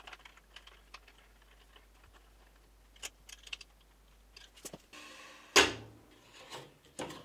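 Small metallic clicks and ticks of an Allen key turning in the set screw of a sliding table saw's crosscut-fence flip stop. About five seconds in comes a brief scrape, then a loud knock as the aluminium crosscut fence is handled, followed by a couple more clicks near the end.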